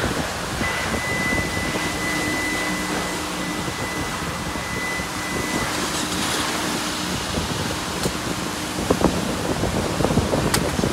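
Steady rushing background noise of a self-service car wash bay. A thin, high, steady whine runs through the first half, and a few sharp clicks come near the end.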